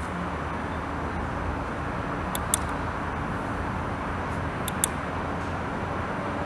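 Gauge-cluster push button on a Honda NM4 clicking, each press and release a quick double click, about every two seconds as the LCD backlight colour setting is stepped through. A steady low hiss and hum sits underneath.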